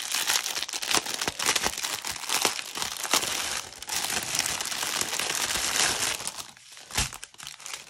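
Clear plastic bag of diamond painting drill packets crinkling as it is handled and turned over in the hands, with many small crackles. It goes quieter near the end, where there is a single soft knock.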